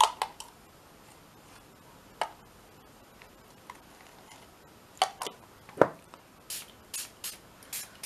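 Light clicks and taps of a small dropper bottle of ink being handled and capped, the sharpest about six seconds in. Near the end come several short hissing spritzes, like a water spray bottle misting the inked page.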